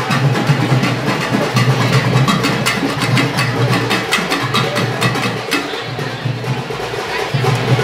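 Music with fast, steady drumming: rapid sharp strokes over a continuous bed of sound.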